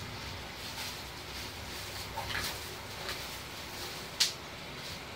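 Bubble wrap rustling and crinkling in a few short bursts as a wrapped air-rifle cylinder is lifted out of a padded gun bag. A single sharp click, the loudest sound, comes near the end.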